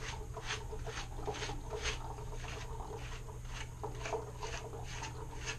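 Dog panting in a steady rhythm, about two breaths a second, over a steady low hum.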